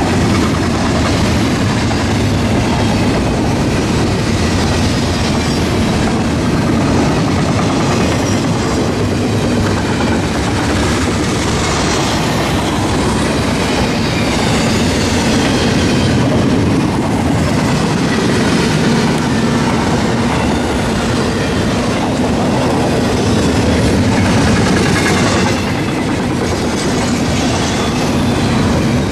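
A double-stack intermodal freight train's container well cars rolling past, the wheels running on the rails with a loud, steady noise.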